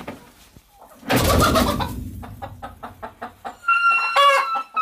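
Cheonggye chickens clucking and calling, with a short burst of noise about a second in and a quick run of high, pitched calls near the end.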